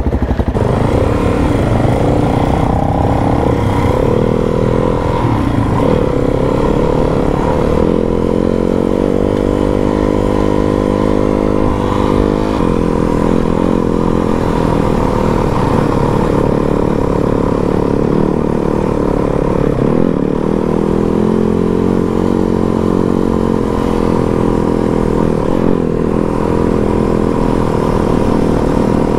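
Four-stroke trail motorcycle engine running under way, its note rising and falling as the throttle is opened and closed and gears are changed, steadier for a few seconds midway.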